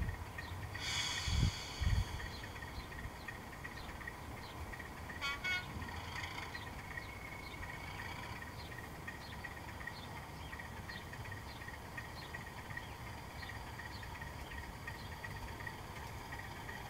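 Distant sound-fitted model of a Class 37 English Electric diesel locomotive running, its engine sound faint and steady, with a short horn toot about five seconds in. A couple of low thumps come near the start.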